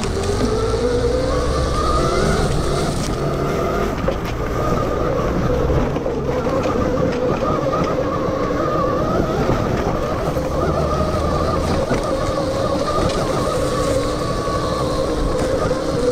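Electric dirt bike's 12 kW MG160A motor whining steadily as it rides, two high tones that waver slightly in pitch with speed, over a low rumble.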